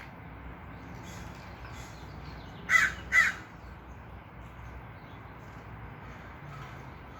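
Wild birds calling: two loud, short calls about half a second apart a little under three seconds in, with two fainter calls a second or so before.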